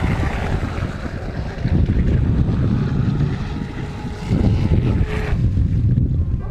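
Wind buffeting the microphone while an electric RC F1 catamaran powerboat runs at speed across the water, its motor and hull adding a higher hiss that cuts off suddenly a little after five seconds in.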